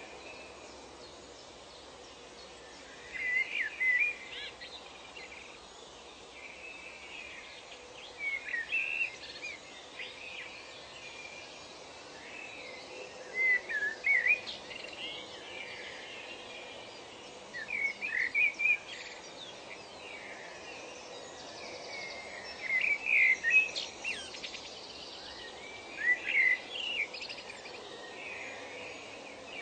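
A songbird singing short phrases of several quick notes, one phrase about every four to five seconds, over a steady background hiss of ambient noise.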